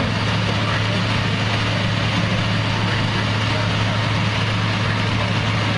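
Heavy diesel engine of a concrete mixer truck idling steadily, a constant low hum with no change in speed.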